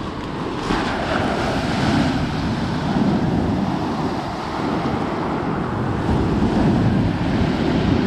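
Rough sea surf breaking on a pebble beach: waves crash and wash up the shingle, surging louder every second or two. The sea is running a little stormy.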